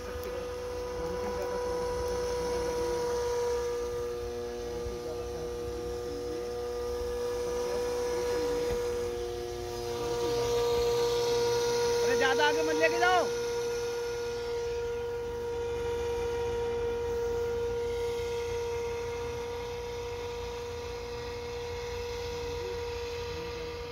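Homemade model airboat's propeller and motor running with a steady, even-pitched whine. A short warbling rise in pitch comes about twelve seconds in.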